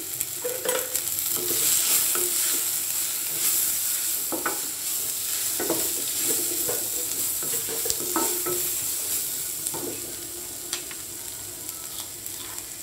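Cluster beans frying in oil in a stainless steel kadai, sizzling steadily while a wooden spatula stirs them, scraping and knocking against the pan about once a second. The sizzle grows a little quieter in the last few seconds.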